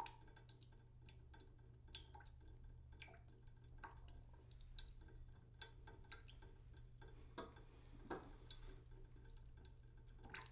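Water dripping slowly into a cooking pot in a sink, faint, irregular drops at uneven intervals, over a steady low hum.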